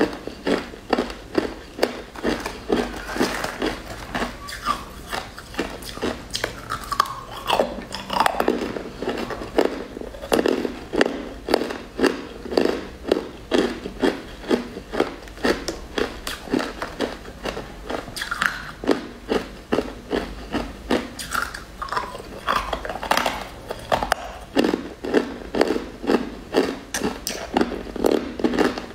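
Close-up crunching and chewing of chunks of purple crystal sugar candy, a steady run of crisp crunches at about two a second.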